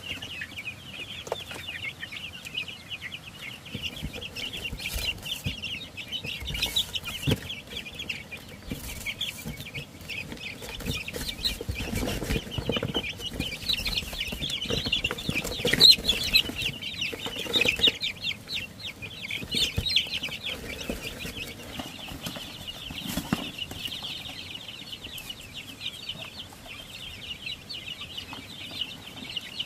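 Young chickens peeping continuously in a dense chorus of short, high chirps. About halfway through there is a louder stretch of wing flapping and scuffling as the chicks are handled and jostle one another.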